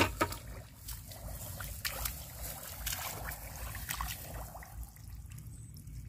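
Footsteps wading through tall grass into shallow muddy water: small irregular splashes and trickles of water mixed with the rustle of grass stems.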